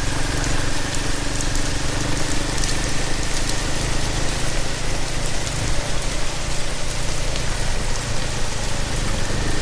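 A Royal Enfield Himalayan's single-cylinder engine runs steadily under a dense hiss of rain while the bike is ridden on a wet road, with faint ticks of raindrops hitting the microphone.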